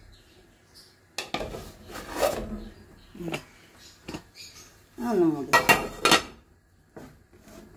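Metal cooking pot and its lid knocking and clattering on the stovetop pan, a string of separate knocks, then the lid going on with a few loud clanks about two-thirds of the way through.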